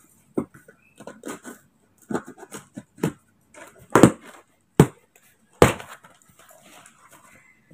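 Cardboard box being pulled and torn open by hand: an irregular run of sharp rips and crackles of cardboard and packing tape. The loudest come near the middle, then it goes nearly quiet near the end.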